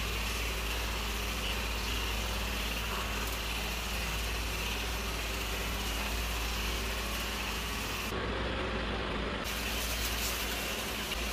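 Steady low hum with an even hiss over it, constant throughout; the high hiss drops out for a moment about eight seconds in.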